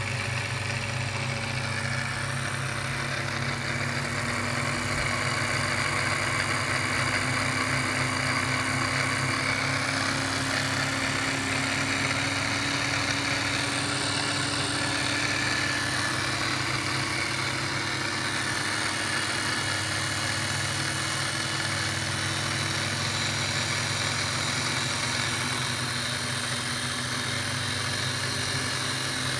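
Emco Unimat SL hobby lathe running: its small electric motor and belt-driven spindle give a steady hum, with a faint tone that slowly rises in pitch.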